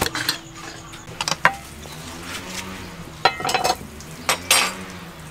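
A wooden rice paddle scooping and stirring cooked rice in an aluminium pot, knocking and scraping against the pot's metal. The clinks come in short clusters: at the start, about a second in, a little past three seconds, and around four and a half seconds.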